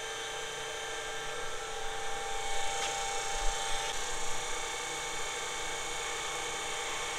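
Enerpac electric-driven hydraulic pump running with a steady hum, powering a pipe bender's hydraulic cylinder in reverse so the bending arm swings back.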